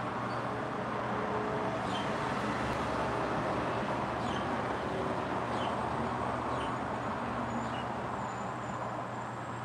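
Outdoor ambience: a steady rush of distant traffic, with a few faint, short bird chirps.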